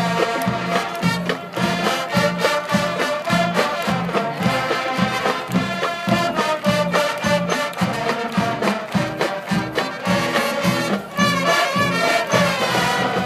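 Marching band playing a hillbilly-style medley: brass over a steady beat.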